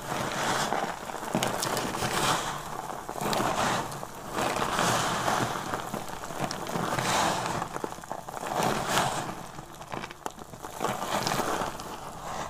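Hands scooping and sifting a heap of dry, crumbled soap: crunchy rustling and crackling as the small hard pieces grind together and patter back down through the fingers. It comes in waves that swell and fade every second or two.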